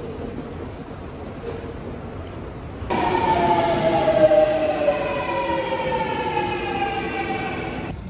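Steady station noise, then about three seconds in, a subway train's electric motor whine, several tones gliding slowly down together as the train slows into the station.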